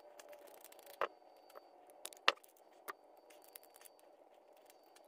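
A few sharp metallic clicks and taps of a hand tool and small parts as the float bowl is worked off a Honda Foreman ATV carburetor, the loudest a little over two seconds in. A faint steady hum sits under them.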